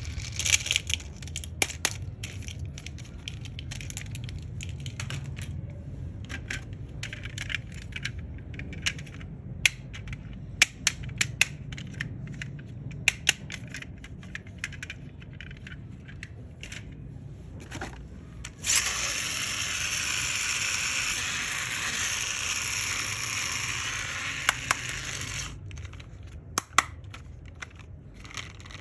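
Hands unboxing toys: plastic packaging crinkling and crackling, with many sharp clicks and taps. About two-thirds of the way through, a steady hissing rustle runs for about seven seconds before the clicks resume.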